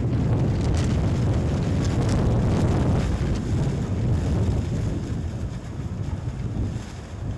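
Strong wind buffeting the microphone in a low, steady rumble, easing off about six seconds in, with the rustle of plastic trash bags flapping.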